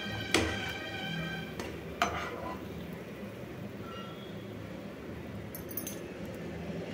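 Steel spoon clinking twice against a nonstick kadai, about a third of a second and two seconds in, as a fried malpua is lifted out of the oil and pressed against the pan's side to drain. Hot oil sizzles faintly underneath.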